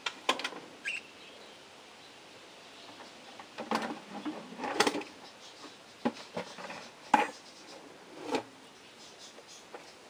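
Budgerigars giving scattered short chirps and scratchy calls with a few clicks, the loudest cluster about four to five seconds in.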